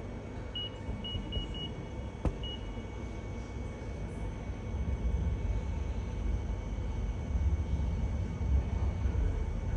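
Ticket machine touchscreen giving short high beeps as its keys are pressed, five in the first few seconds, with one sharp click among them. Under it a steady low rumble grows louder about halfway through.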